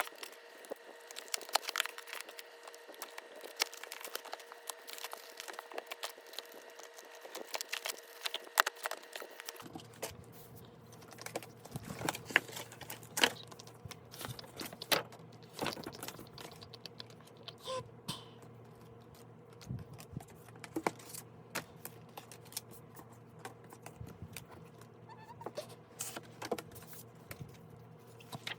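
Hands unboxing parcels and albums: a dense run of small clicks, taps and crinkles from packaging and album parts being handled, over a steady faint hum.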